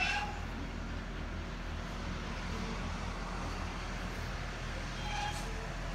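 A steady low mechanical hum, like distant engines running, over even outdoor background noise, with faint brief higher sounds near the start and about five seconds in.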